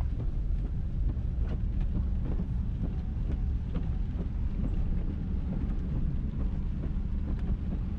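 A truck driving on a wet road, heard from inside the cab: a steady low rumble of engine and tyres, with scattered light ticks and knocks.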